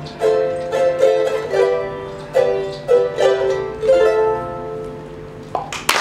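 Ukulele playing the closing phrases of a song, a run of plucked chords with a last chord left ringing and fading away. Audience clapping starts near the end.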